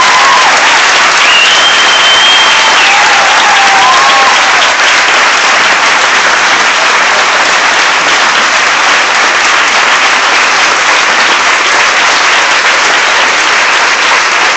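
Large audience applauding loudly and steadily, with a few whoops and a held whistle over the clapping in the first four seconds.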